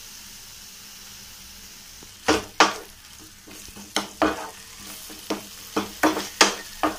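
Onion-tomato masala sizzling steadily in a nonstick frying pan with water just added. From about two seconds in, a wooden spatula scrapes and knocks against the pan in about nine sharp strokes as the masala is stirred.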